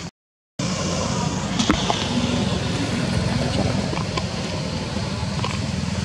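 Steady low rumble with a few faint clicks, starting after a brief silent break at the very beginning.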